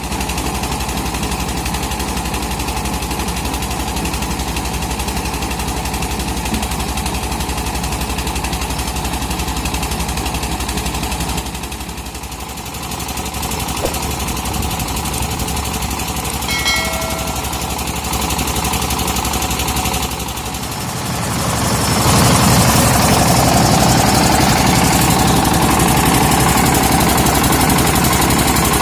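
Portable rice milling machine running with a steady, rapid engine chugging. It dips briefly twice, then runs louder for the last third.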